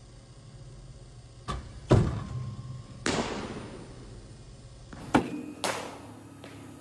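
Cricket bat hitting balls in an indoor practice net: five sharp knocks, each with a short echo, the loudest about two seconds in, over a low steady room hum.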